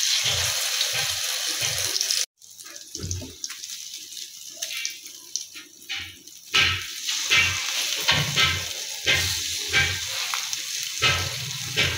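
Egg-dipped bread slices sizzling as they fry in hot ghee in a nonstick frying pan, with short scrapes and taps of a plastic spatula as they are moved and turned. The sizzle cuts out abruptly a couple of seconds in, comes back quieter, then grows louder again about halfway.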